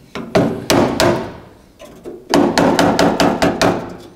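Hammer blows on steel, each with a short metallic ring, knocking a steel patch plate into place in a hinge pocket before welding. Three spaced blows, then a quick run of about eight from about two seconds in.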